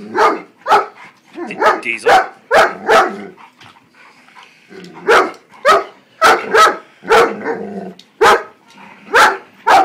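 Dog barking in a run of short, sharp barks, about two a second, with a pause of a second or so midway: play barking during rough play between two dogs.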